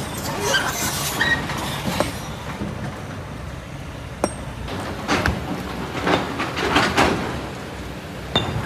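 Kobelco SK200 excavator's diesel engine running under load, with stones and sand clattering and scraping in a string of irregular knocks.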